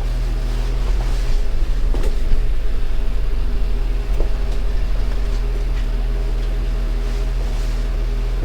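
Subaru Outback's flat-four boxer engine being cranked over by its starter motor for a compression test, a steady, even cranking for several seconds that cuts off suddenly at the end.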